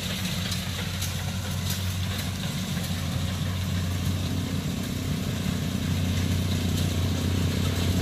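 Kubota DC68G combine harvester's diesel engine running steadily while it harvests rice, a low drone that grows slowly louder as the machine comes closer.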